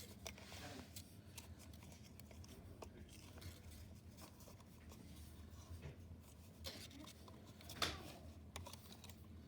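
Faint handling sounds of the plastic cover of a 1984 Probe Model 601 smoke alarm being twisted back on: light rubbing and small clicks, with one sharper click near the end.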